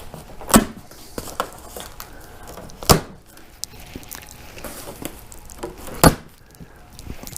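A taped cardboard shipping box being cut and pried open, with scraping and rustling and three sharp snaps, about half a second, three seconds and six seconds in.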